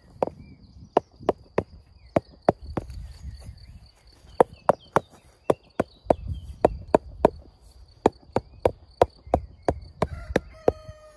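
Repeated mallet taps on flexible recycled-plastic garden edging, driving it down into a slit in the soil. The taps come in quick runs of about two to three a second. A steady high cricket trill sounds behind them.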